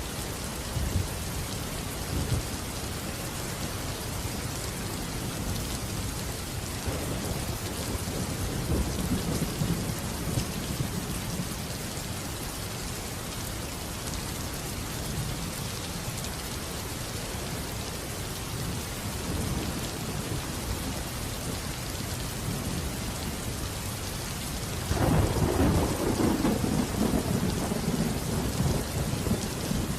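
Steady rain falling, with rolling thunder: a low rumble builds and fades a few seconds in, and a louder clap of thunder breaks suddenly near the end and keeps rumbling.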